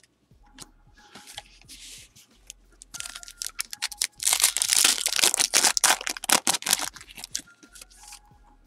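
Rustling, then a few seconds of dense crinkling and tearing of a foil trading-card pack wrapper being opened, loudest from about four to seven seconds in.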